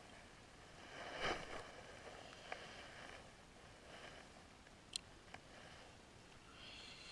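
Faint handling noise on a kayak: a brief rustle about a second in, then a few small sharp clicks, the sharpest about five seconds in, as gear is moved about.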